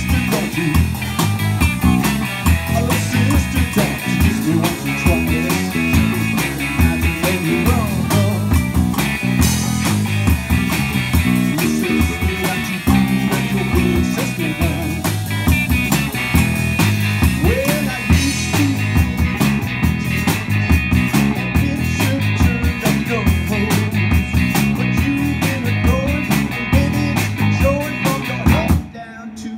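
Rock band playing live with electric guitars and a drum kit, an instrumental stretch with no singing. The music drops out briefly near the end.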